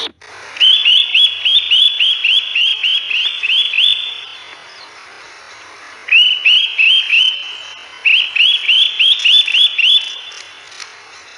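Rapid series of short, rising chirping calls, about four a second, in three runs with brief pauses between them, part of the video's added background soundtrack.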